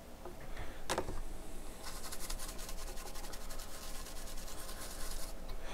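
Rapid scrubbing strokes on a circuit board, cleaning flux residue off a freshly soldered via repair. A single knock comes about a second in, and the scrubbing runs from about two seconds in until shortly before the end.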